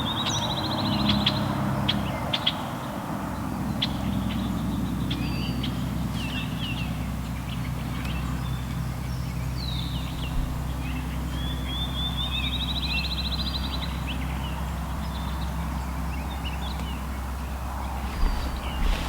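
Songbirds chirping, with two rapid trills (one at the start and one about twelve seconds in), over a steady low hum.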